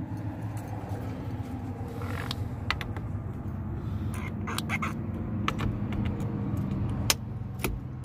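Scattered sharp metallic clicks and clinks of hand work on a truck's steering column, as the quick-release hub and its retaining nut are fitted, over a steady low hum.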